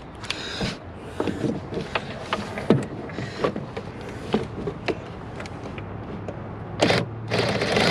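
Irregular clicks and knocks of hand tools and intake parts being handled during a cold air intake install, with a louder stretch of handling noise near the end.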